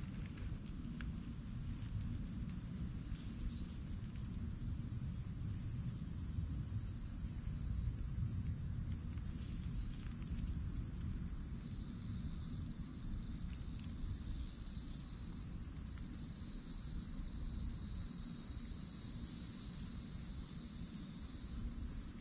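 Steady, high-pitched insect chorus that runs without a break, with some voices dropping out or shifting a few times, over a low rumble.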